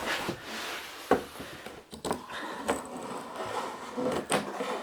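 A water pipe being pushed through a hole under the floorboards, scraping and knocking against the wooden joists as it goes, with a few sharp knocks.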